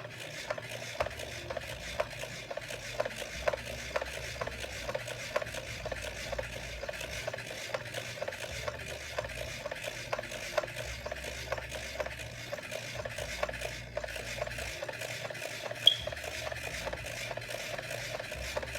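Skip Dr manual disc repair system being hand-cranked, its buffing wheel rubbing and grinding over a wet disc, with a steady run of quick small clicks as it turns. One sharper click about 16 seconds in.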